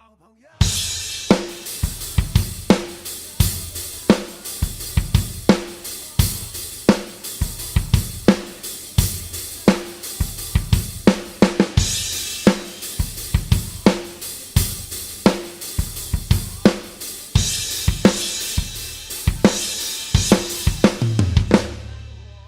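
Rock drum kit played on its own, with no other instruments: kick and snare beat driven on hi-hat with frequent crash cymbals. It comes in sharply just after a short silence at the start and dies away on ringing cymbals near the end.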